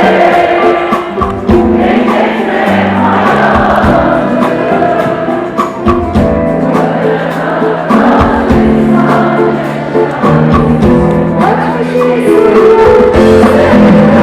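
Live concert music: a band with bass and drums playing a Turkish pop song, with singing over it.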